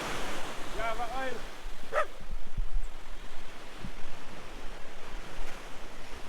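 Sea surf washing on the beach, with wind buffeting the microphone. A short distant call is heard about a second in, and a brief sharp sound about two seconds in.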